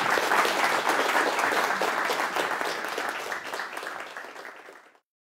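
An audience of a few dozen people applauding; the clapping fades out and stops near the end.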